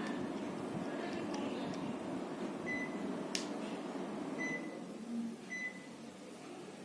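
Panasonic split air conditioner indoor unit giving three short high beeps a second or two apart, the beeps it makes on taking a remote-control command, with one sharp click between the first two. Under them runs the steady rush of the unit's airflow, which drops off near the end.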